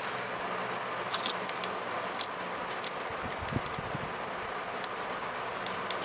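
Light metallic clicks and scrapes of a thin lock pick and tension wrench working the pin stack of a small pin-tumbler rim cylinder, over a steady fan hum.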